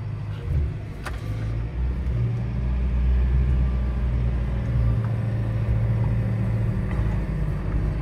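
Diesel engine of a 6-ton JCB excavator running steadily under load as the boom and bucket dig into a muck heap, heard from inside the cab. A faint click about a second in.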